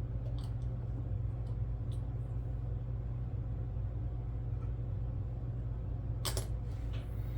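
Steady low background hum with a few light clicks of the plastic model kit being handled; the sharpest click comes about six seconds in.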